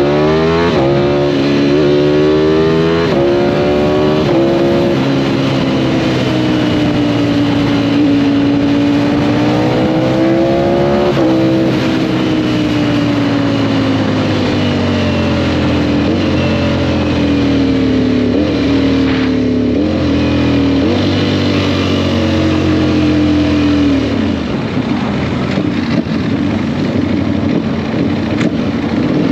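Sport motorcycle engine accelerating through several quick upshifts, the pitch climbing and dropping back with each gear. It then holds a steady cruise, and near the end it blips through a few downshifts as it slows, over steady wind noise.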